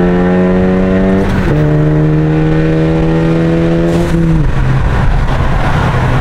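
Full-bolt-on Ford Focus ST's turbocharged four-cylinder engine pulling hard under acceleration, heard from inside the cabin. Its note drops at a gear shift about a second and a half in, climbs slowly again, then falls to a lower, steadier drone near the end.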